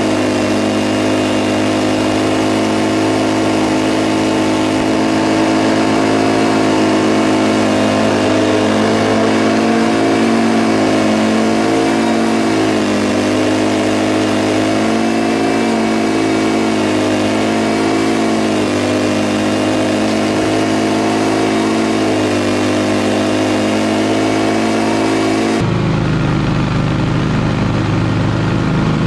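Engine of a Scag V-Ride stand-on commercial mower running steadily while mowing, its pitch wavering slightly. About 26 seconds in the sound changes abruptly: the hiss drops away and a deeper rumble takes over.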